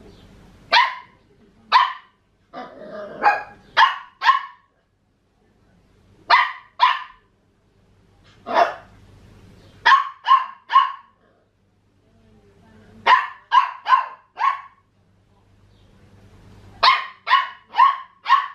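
A 14-week-old Papillon puppy yapping in play barks, about twenty short, high-pitched barks in quick bursts of two to five with brief pauses between.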